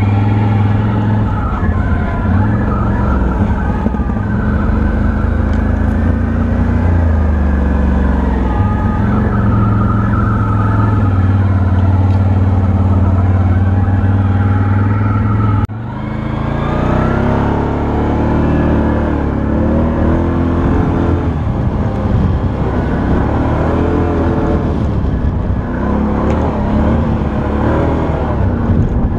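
Can-Am Outlander 1000 XT-P ATV's V-twin engine running under way, holding a fairly even speed at first. About halfway through the sound breaks off suddenly and comes back a little quieter, with the engine revs rising and falling over and over.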